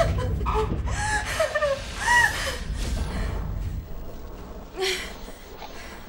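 A person's gasping, whimpering vocal sounds over a low rumble, with the whole sound fading away over the second half.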